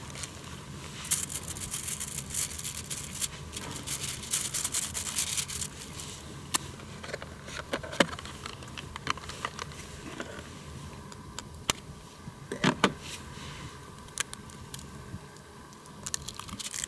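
Crinkling and rustling of a handmade aluminium-foil frying pan being handled, heaviest in the first few seconds, with scattered sharp clicks.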